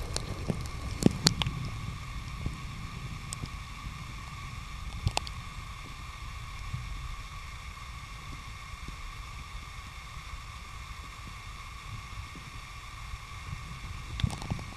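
Underwater sound picked up by a submerged camera: a low muffled rumble of moving water under a steady faint whine, with a few sharp clicks or knocks in the first second or so and another about five seconds in.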